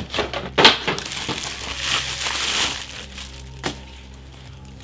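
Plastic packaging crinkling and rustling as a new camera body is unwrapped from bubble-wrap and a thin plastic bag. There are sharp crackles in the first second, a denser rustle in the middle, and a single click a little before the end.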